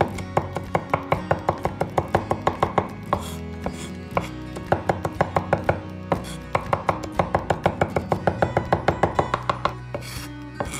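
Cleaver chopping garlic on a wooden cutting board: quick, even knocks of the blade on the wood, about five a second, in three runs with short pauses between them. Background music plays underneath.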